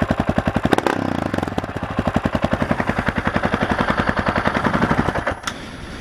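Honda XR650R single-cylinder four-stroke engine running through an FMF aftermarket muffler, a fast train of exhaust pulses that coughs and splutters, which the owner puts down to carburettor jetting not set up for the baffle being in. The engine stops about five seconds in.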